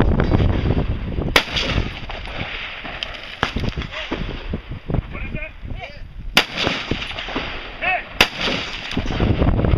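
Rifle shots fired singly and spaced out, a second or more apart, during a timed practical-rifle stage. The three loudest come about a second and a half, six and a half and eight seconds in, with fainter shots around three to four seconds.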